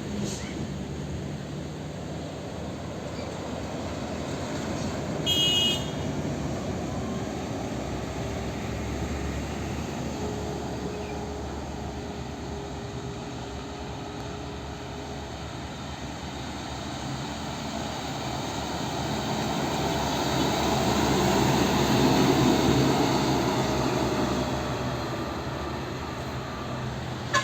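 Roadside traffic with heavy diesel trucks going by. A short high-pitched toot sounds about five seconds in, and a large vehicle passes close and loud in the last third.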